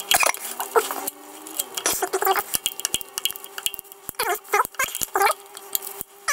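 Hand tools on the car's underside: a run of sharp metallic clicks and clinks as a wrench and socket work a bolt. A few short squeaks come around the middle.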